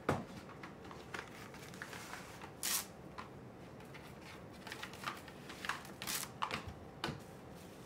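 A knock at the start, then plastic cling film crinkling and crackling as it is handled and stretched over a metal strainer. Two longer hissing pulls come about three seconds in and again about six seconds in.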